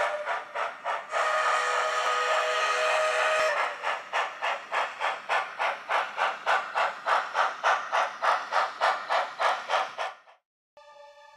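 Steam locomotive sound from a model steam engine: a steam whistle in a few short toots, then a long blast of about two seconds, followed by steady chuffing at about four beats a second that cuts off suddenly near the end.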